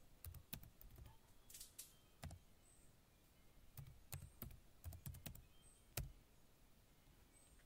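Typing on a computer keyboard: faint, irregular keystrokes with short pauses between them.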